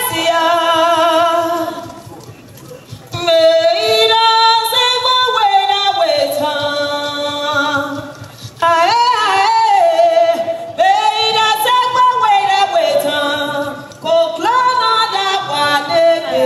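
A woman singing unaccompanied, in long held phrases with a wavering vibrato, broken by short pauses about two, eight and fourteen seconds in.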